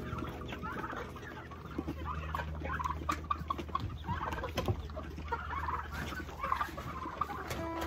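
A pen of young turkeys and chickens calling with many short chirping clucks, joined by a couple of sharp knocks.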